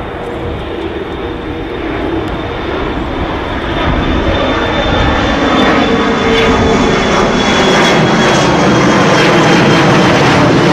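Jet airliner engines at takeoff power as the plane climbs out: a steady, loud rushing noise that grows louder about four seconds in, with a thin high whine on top.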